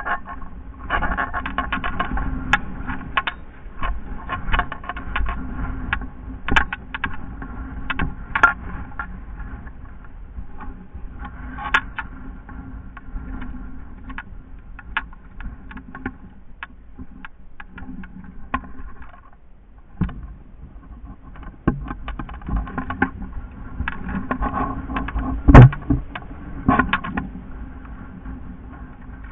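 Footsteps on dirt and rock with gear rattling and knocking against a body-worn camera as the player moves, an irregular run of clicks and knocks. A sharper, louder knock comes near the end.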